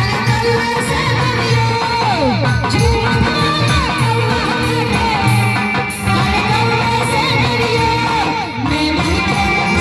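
Loud Indian stage music played through a PA sound system: a gliding melody line with singing over a steady pulsing bass beat.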